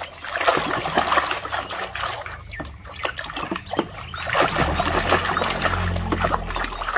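Water splashing and trickling as a muddy toy gun is rinsed and scrubbed by hand, with small knocks of plastic against plastic.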